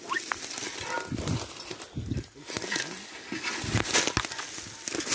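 A hunting dog working at an armadillo burrow in dry brush: irregular rustling, scrabbling and snuffling as it holds the cornered armadillo at bay.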